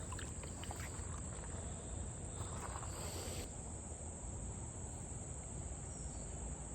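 A steady, unbroken high-pitched insect chorus over a low, even wash of flowing creek water.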